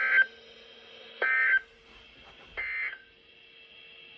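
NOAA Weather Radio SAME end-of-message code: three short, shrill digital data bursts about 1.3 seconds apart, with a faint steady hum between them. The bursts mark the end of the severe thunderstorm warning message.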